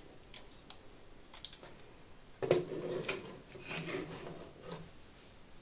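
Plastic LEGO set being handled: a few light clicks of bricks, then about two and a half seconds in a knock as the assembled set meets the tabletop, followed by a couple of seconds of plastic rubbing and knocking as it is moved about.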